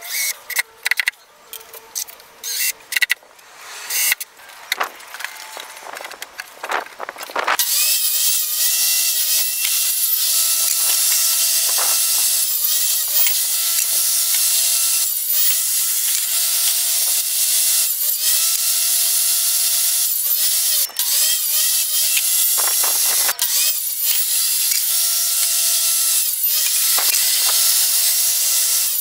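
A cordless drill drives screws into plywood in a string of short bursts. About seven seconds in, a portable table saw takes over and runs steadily with a high whine that dips briefly every second or two.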